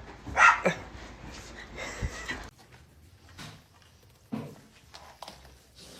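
A dog's short vocal cries: a loud one falling in pitch about half a second in, and a shorter, quieter one about four seconds in.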